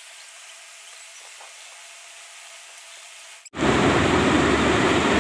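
Steady rushing background noise, faint and thin at first, that cuts in abruptly and loud about three and a half seconds in.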